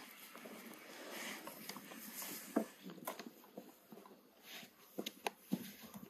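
Long, thin wooden rolling pin working a thin sheet of dough on a floured wooden board. Soft rubbing strokes are broken by a few sharp wooden knocks, the loudest about halfway through and twice near the end.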